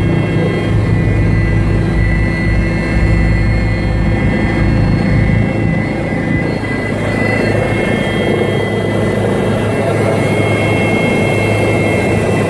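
Helicopter engine and rotor noise heard from inside the cabin in flight: a steady low drone with a high whine over it, the lowest part of the drone changing about halfway through.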